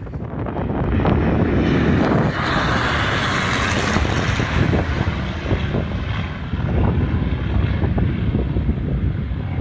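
Piston-engined propeller aircraft heard over heavy wind buffeting on the microphone, its engine sound swelling for a few seconds about two seconds in.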